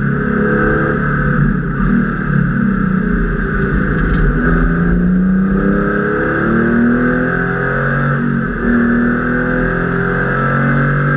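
Porsche 993's air-cooled flat-six engine heard from inside the stripped cabin, pulling hard with its pitch climbing repeatedly. It briefly lifts and drops in pitch about eight and a half seconds in, as at a gearshift, then climbs again.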